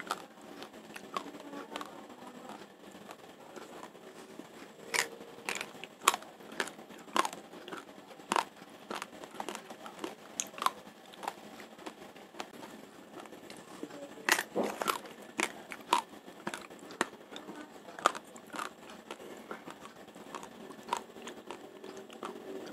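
Dry raw Rojolele rice grains being chewed: irregular crisp crunches, with a dense run of louder ones about fourteen seconds in.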